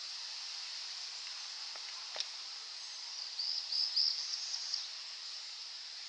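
A pileated woodpecker digging into a rotten log gives a single sharp tap of its bill a little after two seconds, over a steady high hiss. About a second later a small bird sings a quick run of high chirping notes.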